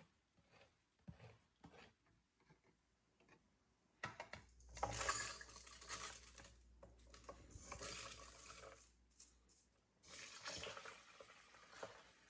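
Quiet kitchen prep sounds: first faint, irregular clicks of a hand-cranked can opener working around a can lid. About four seconds in comes a rushing hiss as soaked rice slides from a mesh strainer into a blender jar. Near the end there is a softer pour as thick coconut cream runs from the can into the jar.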